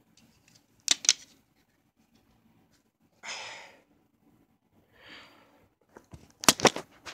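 Plastic CD jewel case being handled: two sharp clicks about a second in, two short soft rustles in the middle, and a quick run of louder clicks and knocks near the end.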